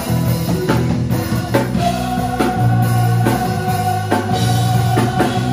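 Music with a drum kit keeping a steady beat of about two strikes a second, under one long held note.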